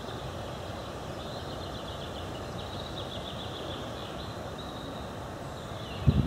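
Steady low outdoor rumble with small birds singing faintly, including a quick trill a little before halfway. Just before the end, loud low buffeting starts, like wind hitting the microphone.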